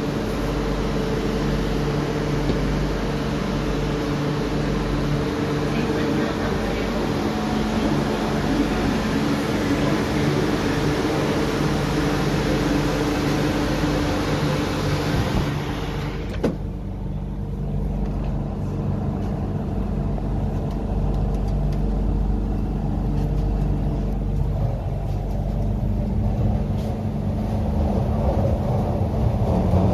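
Cabin sound of an MTR Island Line Q-Train: a steady hiss over a low hum. About halfway there is a sharp click and the hiss cuts off, leaving only the low hum of the train's equipment, which builds again near the end.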